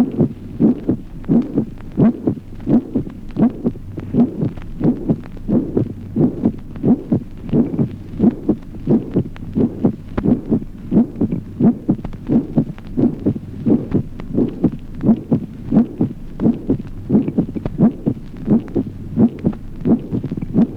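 Auscultation recording of a human heart beating at a steady rhythm. The first heart sound is resonant, with a musical ring in some isolated beats. A steady low hum runs underneath.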